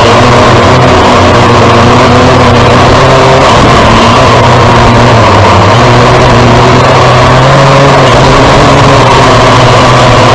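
Kai Deng K70C quadcopter's motors and propellers buzzing in flight, heard very close and loud. The pitch wavers with throttle and steps up a little a few seconds in.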